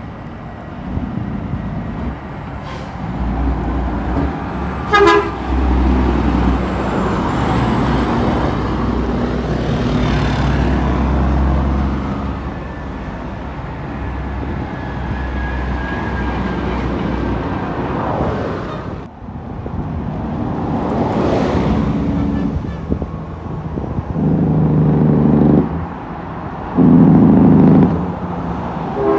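Heavy truck running on the road with a steady low engine rumble and traffic passing. Near the end, a vehicle horn gives two long blasts.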